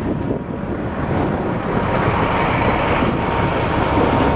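High-reach demolition excavator running steadily, its engine and hydraulics working, with a faint steady whine joining about halfway through.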